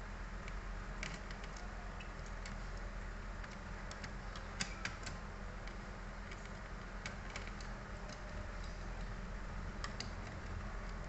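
Irregular light clicks and ticks of a screwdriver working the small screws and plastic parts inside a laptop, with one sharper click about four and a half seconds in, over a steady low hum.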